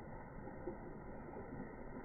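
Faint, steady background noise with no distinct sound standing out.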